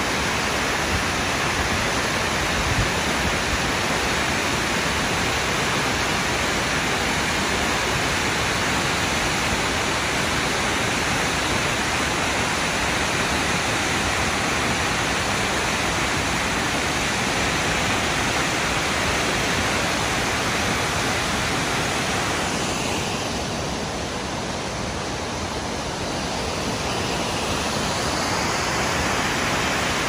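A large waterfall pouring down a granite cliff, a steady loud rush of falling water. The rush eases slightly for a few seconds about three quarters of the way through, then returns.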